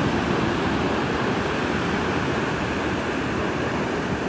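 Ocean surf breaking and washing up a beach, a steady rushing noise.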